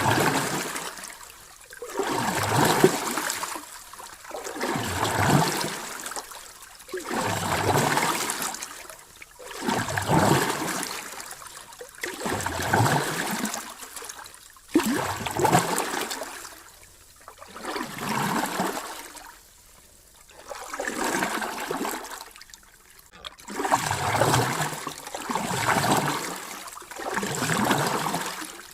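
Sea waves washing in and drawing back in a steady rhythm, each surge of rushing water swelling and fading about every two and a half seconds.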